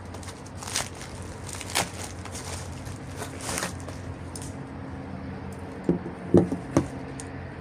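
Plastic bubble-wrap packaging crinkling in short rustles as it is handled, then a few dull knocks near the end as coiled battery cables are lifted out of a cardboard box.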